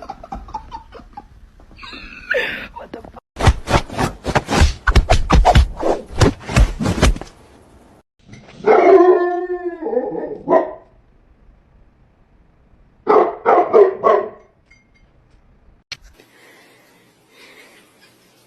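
A dog barking in quick runs of barks, with a longer drawn-out call between them.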